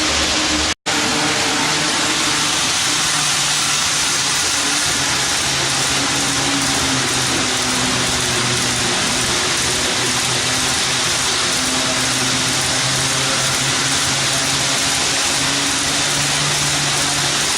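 HO-scale model train running on a layout: a steady hiss with a low, engine-like hum whose pitch shifts now and then. The sound cuts out for an instant about a second in.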